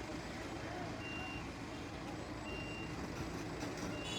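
A heavy machine's diesel engine running steadily while a reversing alarm beeps: three short high beeps about a second and a half apart.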